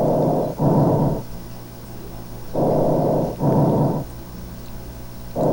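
Recorded auscultation breath sounds of the glottic (tracheal) component of the breath sound: an even, harsh rustle of air on each inhale and exhale. Three breaths are heard, each a pair of short rustles, about one every 2.7 s.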